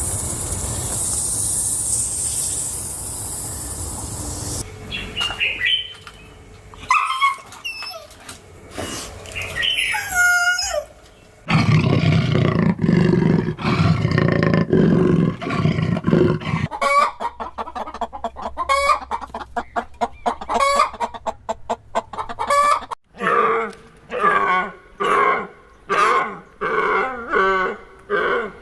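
Chickens clucking and calling, with a rooster crow among the calls; it opens with a few seconds of steady rushing noise, and over the second half the clucks come thick and fast, about two calls a second near the end.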